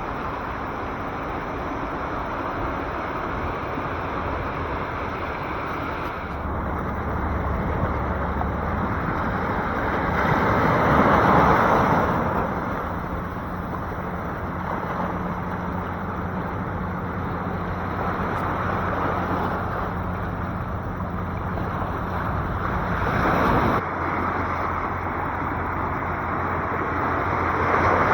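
Sea waves washing in and drawing back: a steady rush that swells loudest about ten seconds in and again near the end.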